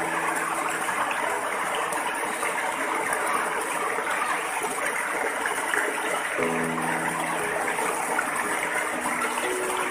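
Water spilling over a stone ledge in a small cascade, a steady even rush and splash of falling water.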